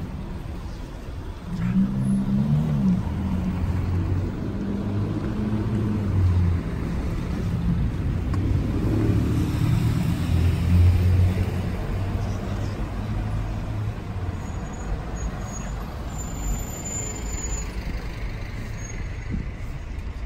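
Engine of a large road vehicle running close by in street traffic: a low rumble that swells about a second and a half in, is loudest around the middle, then eases off.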